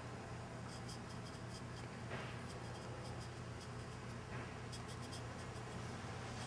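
Faint handling sounds, light scratching and rustling, over a steady low hum, with two soft slightly louder rustles about two and four and a half seconds in. There is no crack from the glass bottle.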